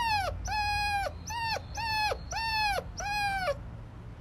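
A puppy howling: six short, high-pitched whining howls in a row, each holding a steady note and then dropping in pitch at the end.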